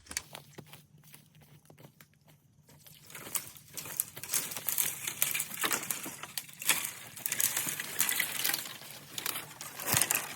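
Dry leaves and brush rustling and crackling in a dense, irregular run of small cracks. It is faint at first and thickens about three seconds in.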